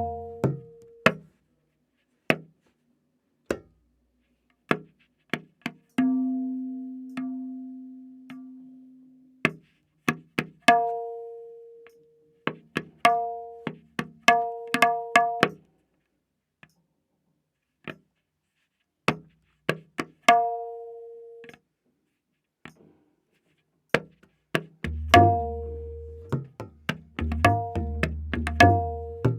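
Tabla playing a slow vilambit ektaal theka, with single strokes spaced by long silent gaps. The dayan is tuned to A# and its strokes ring. The bayan gives one sustained low stroke about six seconds in and deep bass strokes near the end.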